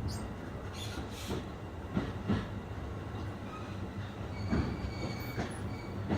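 E531 series electric train running on the rails, heard from inside the car, at the reduced speed of a strong-wind restriction. A steady low rumble is broken by wheels knocking over rail joints several times, and a faint high wheel squeal comes in about four and a half seconds in.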